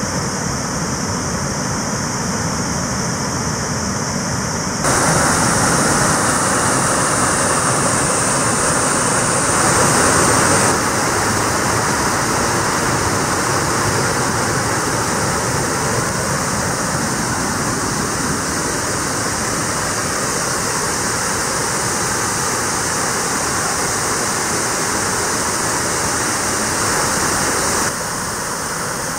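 Steady rush of river waterfalls plunging over rock into a pool, full white water with no break. It grows louder about five seconds in, eases a little about eleven seconds in, and drops again near the end.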